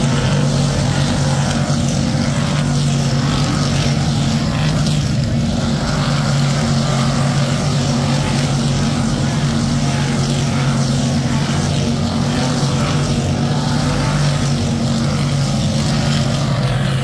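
A pack of dirt-track race cars' V8 engines running around the oval together, a loud, steady drone that holds an even pitch.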